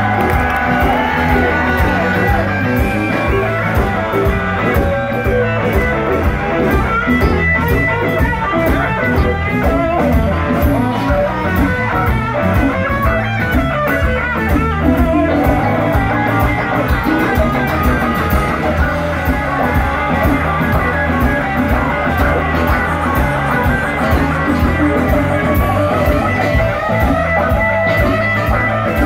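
Live blues band playing loudly: electric guitars play lead lines over a steady drum-kit beat and a heavy low end.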